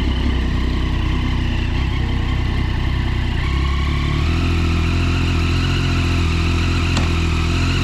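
2007 Triumph Daytona 675's inline three-cylinder engine idling steadily after a fresh start, its idle note shifting about four seconds in.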